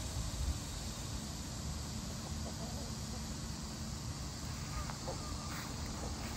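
Backyard ambience: a steady low rumble with a faint even hum, and a few faint short chirps near the end.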